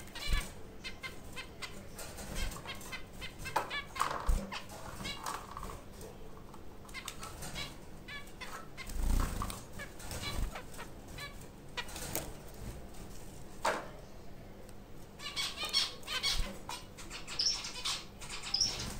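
White zebra finches fluttering their wings in a wire cage, with scattered clicks and knocks as they hop and land. Runs of quick, high chirping calls come a few seconds in and again near the end.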